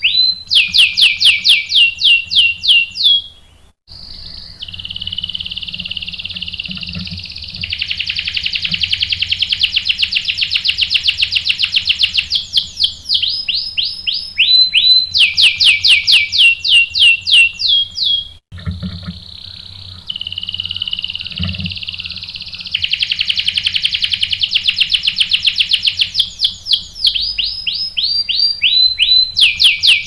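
Domestic canary singing loudly in long rolling song: runs of quick falling notes alternating with long, fast, even trills, breaking off briefly about four seconds in and again just past halfway.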